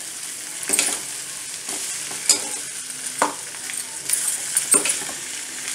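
Metal spatula stirring and scraping mashed potato samosa filling in a kadai on a gas flame, with a steady sizzle of the oil underneath. Sharp scrapes of the spatula against the pan come about once a second.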